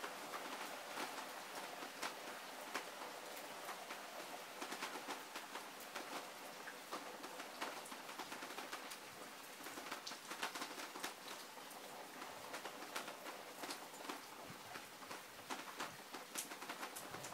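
Heavy rain falling: a steady hiss with frequent sharp ticks and taps of single drops hitting surfaces close by.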